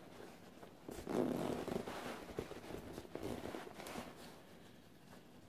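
The zipper of a glossy nylon down jacket being pulled along its teeth in several rasping strokes between about one and four seconds in, with the padded shell rustling under the hands. It dies down near the end.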